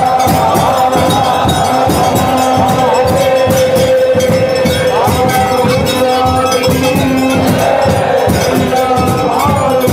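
Hindu temple evening aarti: bells and metal percussion clanging in a fast, continuous rhythm over steady held tones, with a large crowd of devotees chanting and calling out.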